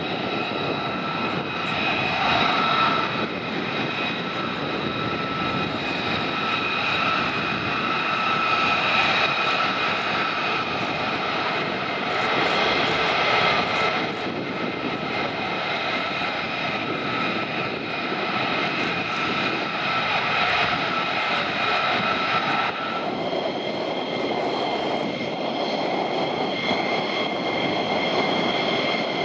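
Military jet engines running steadily at taxi power, a high whine over a broad rumble. First comes the single-engine F-35A Lightning II; after a sudden change about three-quarters of the way in, the whine shifts to a different pitch as F-15E Strike Eagles taxi.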